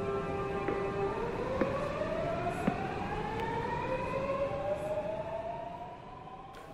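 Subway train's electric traction motors whining as the train pulls out, several tones rising slowly in pitch together, with a few clacks from the wheels; it fades near the end.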